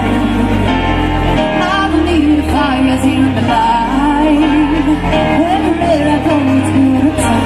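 Live pop band playing, with a woman singing the lead melody into a microphone over bass and drums, as heard from the audience.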